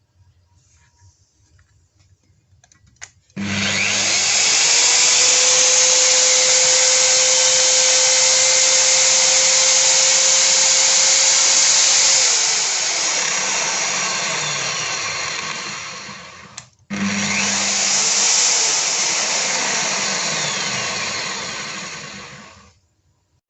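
Electric burnishing machine (brush sander) running loud at high speed. Its motor winds up about three seconds in and drops in pitch about halfway through. It stops briefly, starts again, and runs a few more seconds before cutting off near the end.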